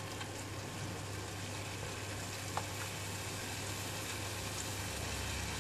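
Minced pork simmering in a little water in a stainless steel saucepan: a steady low hum and hiss, with one light click about halfway through.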